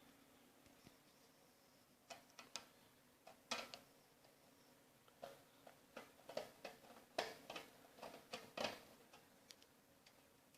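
Scattered light clicks and taps, irregular and in small clusters: a screwdriver working the screws and the metal casing of a PC power supply being handled and opened.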